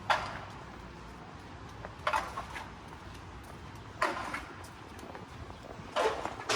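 City street ambience with a short, sharp noise that repeats about every two seconds, four times.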